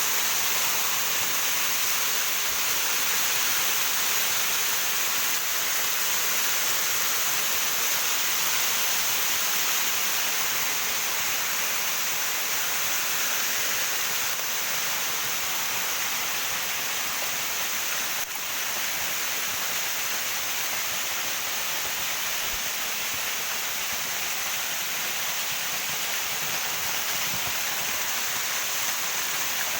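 A waterfall's falling water makes a steady, even rushing hiss, mostly in the high end.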